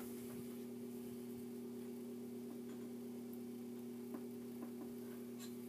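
Hampton Bay Littleton ceiling fan running on low speed with a steady buzz from its light kit, with a few faint ticks near the end. The buzz comes from a loose, bare screw in the light kit vibrating with the fan, with the globe removed.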